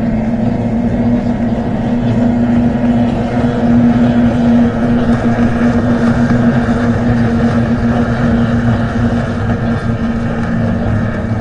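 Motorboat engine running steadily at speed, a continuous drone with a churning wash beneath it that swells slightly about four seconds in.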